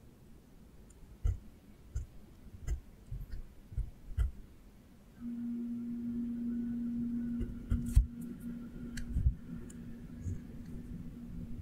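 Pencil on paper in short strokes, making scattered light clicks and taps. About five seconds in, a steady low hum starts and runs on.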